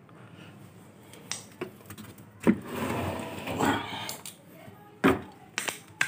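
Screwdriver clicks, knocks and scrapes on the plastic casing of a twin-tub washing machine as its front screws are undone. The sharpest knocks come about two and a half and five seconds in, with a rougher stretch of handling between them.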